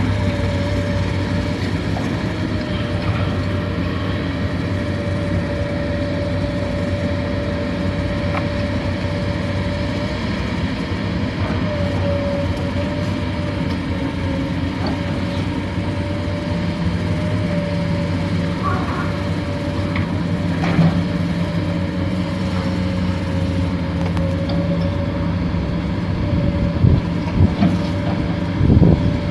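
Excavator's diesel engine running steadily under load, a constant drone with a steady whine above it. A few knocks and clanks near the end.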